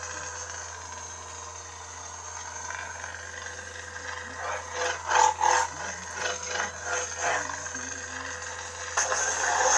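Crimson Dawn Tsukenshido lightsaber's sound board playing a blade hum with several steady tones under a crackle. A few louder swing sounds come in the middle, and a final swell near the end cuts off sharply, like the blade retracting.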